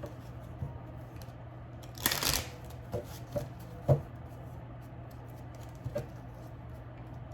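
Tarot cards being shuffled in a short riffle about two seconds in, followed by a few light clicks and taps as cards are handled and laid down.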